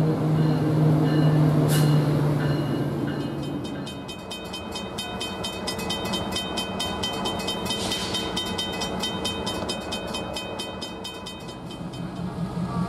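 A low steady drone fades out about three and a half seconds in. A railroad bell then rings rapidly and evenly as a diesel-hauled passenger train approaches, stopping shortly before the end.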